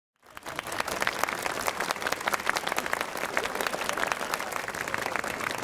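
Silent for a moment, then a crowd applauding, a dense steady clapping that starts suddenly just after the start.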